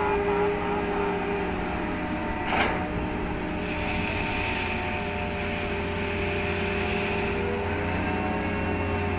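Crane machinery running with a steady hum, a sharp knock about two and a half seconds in, then a hissing rush for about four seconds as coal pours out of the opened clamshell grab onto the barge's pile.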